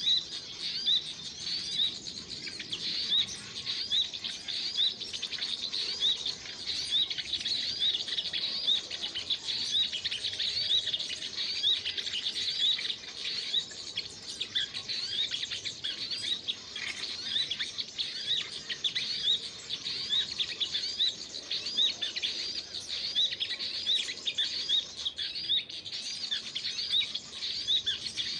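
Small birds chirping: a rapid, unbroken string of short, high chirps that repeats evenly throughout.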